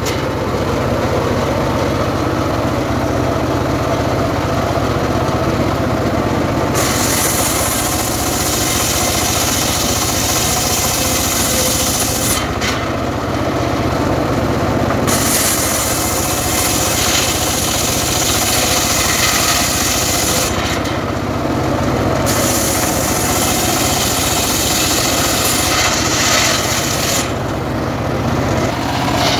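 Homemade engine-driven circular saw bench ripping a log lengthwise, the large blade cutting through the wood over the steady running of its engine. The high hiss of the cut drops away for a few seconds at a time, several times over.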